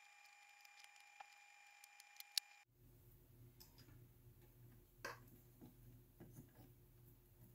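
Near silence: faint room tone with a few small clicks and taps from tools being handled while desoldering. A faint low hum sets in about three seconds in.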